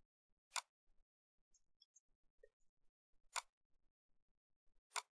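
Three sharp computer mouse clicks over near silence.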